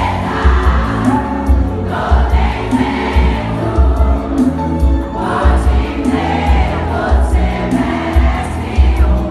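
Live band music played loud through a PA, with a heavy, even bass beat and many voices singing.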